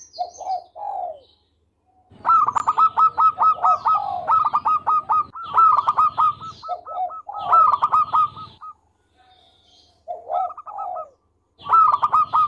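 Zebra dove (perkutut) singing: a few short coos, then long runs of rapid, repeated cooing notes over lower coos, in three phrases with short pauses between. Faint high chirps of small birds in between.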